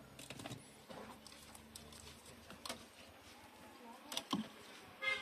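Faint rustling and scattered light clicks of loose wiring and plastic door sheeting being handled. Right at the end a car horn starts to sound, louder than everything before it.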